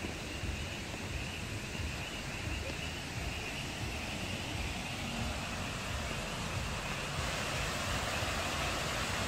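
Water fountain running, a steady splashing hiss that grows slightly louder towards the end.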